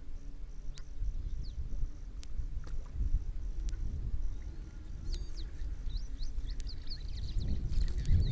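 Outdoor wildlife ambience with a low rumble underneath. An insect trills in short, evenly spaced pulses, and a faint click comes about every one and a half seconds. Small birds start chirping about halfway through.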